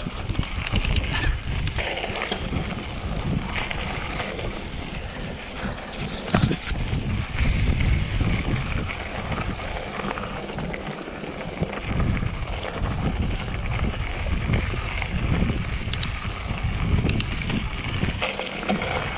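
Mountain bike being ridden over a gravel path: tyres rolling and crunching on the gravel, with occasional sharp clicks and knocks from the bike and a steady rumble of wind on the microphone.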